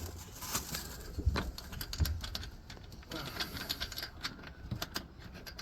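Irregular light clicks and clinks of hand tools on metal as the last rooftop tent mounting bracket is tightened, a ratchet spanner by the sound of the moments before.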